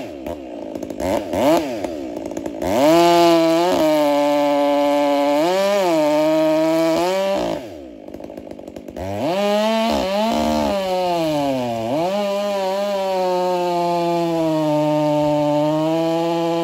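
Stihl gas chainsaw cutting through a big white oak log, sawdust flying. The engine pitch sags several times as the chain bites into the wood, falls to a quieter idle about eight seconds in, then revs back up and cuts steadily at high speed to the end.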